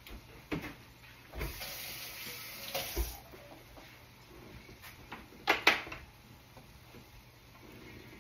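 Kitchen handling noises: scattered knocks, a short rush of hiss lasting under two seconds that ends in a thud, then two sharp clacks in quick succession a little after halfway, the loudest sounds.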